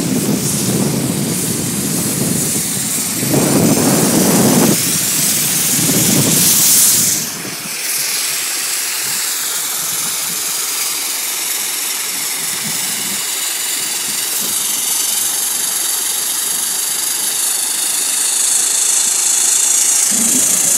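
Wind rushing over the microphone and skis hissing on packed snow during a fast downhill ski run, past a snowmaking gun spraying beside the trail. The low wind buffeting drops away about eight seconds in, leaving a steady hiss.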